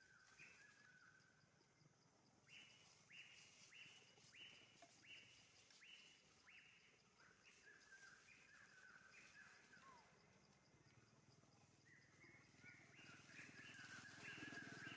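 Faint, high, short chirping calls repeated about twice a second, each dropping in pitch. They pause for a couple of seconds near the middle and come back more thickly near the end.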